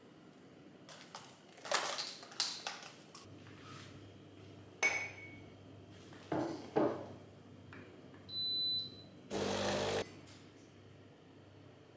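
Kitchen objects handled and set down, a series of knocks and clinks, then a short electronic beep about eight seconds in, followed by a brief burst of noise lasting under a second.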